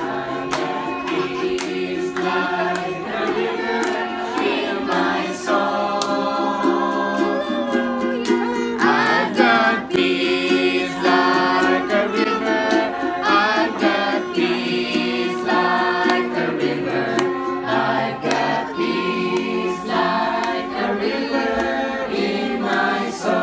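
Music: a song sung by a group of voices together, choir-style, over held notes and a steady beat.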